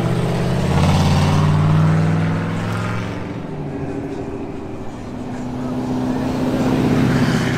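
Squatted pickup truck's engine and exhaust droning as it drives past. The sound fades in the middle as it pulls away, then swells again as it comes back toward the listener.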